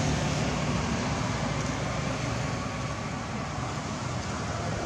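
Steady low rumble and hiss of outdoor background noise, with no distinct sounds standing out.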